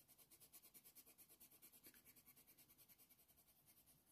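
Faint, quick strokes of a Faber-Castell Polychromos colored pencil shading on hot-press watercolour paper, about seven strokes a second, trailing off a little after three seconds in.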